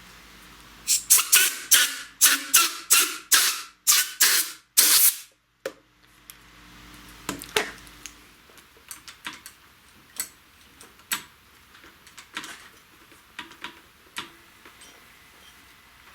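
A hand-pump spray bottle squirted about ten times in quick succession, each squirt a short hiss. After that come quieter scattered taps and clicks of handling, as the grip goes back onto the handlebar.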